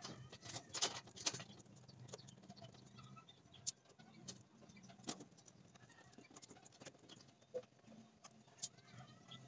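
Faint, scattered clicks and taps from a hand screwdriver working screws into a wooden speaker baffle, the loudest about a second in, with birds chirping in the background.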